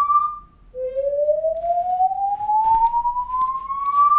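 Building evacuation alarm sounding its slow-whoop signal: a loud tone rising steadily in pitch over about three and a half seconds, cutting off and starting low again just under a second in. It is the signal to evacuate the building.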